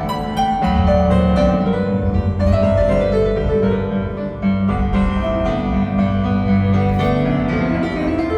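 Piano-led music with a steady bass line, played over a hi-fi loudspeaker system in a demo room.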